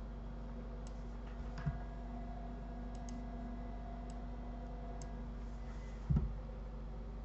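Scattered computer mouse clicks over a steady low electrical hum, with two dull low thumps, the louder one about six seconds in.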